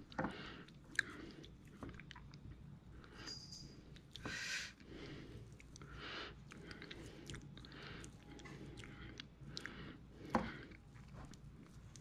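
Hands pressing and spreading crumbly dough across the top of a cake in a pan: faint soft crunching and squishing, with scattered small clicks.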